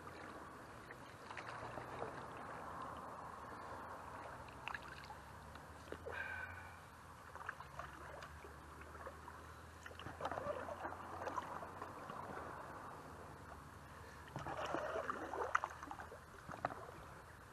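Water splashing and dripping around a canoe being paddled, over the gurgle of shallow, fast-flowing river water, with a louder spell of splashing near the end.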